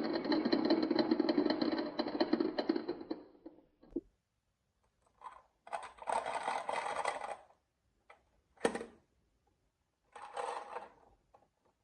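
Marbles rolling and clattering down a HABA wooden marble run: a dense, rapid rattle that fades out over the first three seconds or so, then several shorter runs of clicking rattle, the longest about two seconds.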